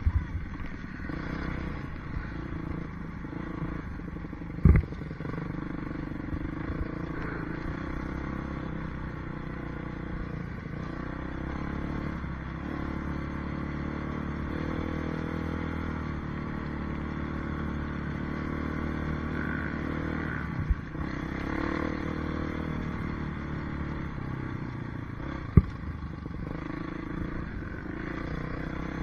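Motocross bike engine running steadily at low revs, heard close up from an on-board camera, with two sharp knocks, one about five seconds in and one near the end.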